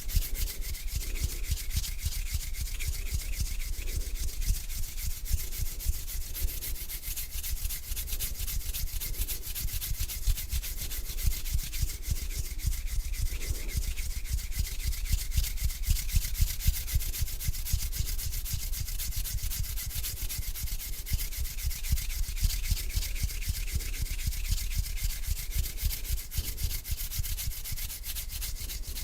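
Bare hands rubbing together slowly close to the microphone, a continuous dry rubbing hiss with gentle swells.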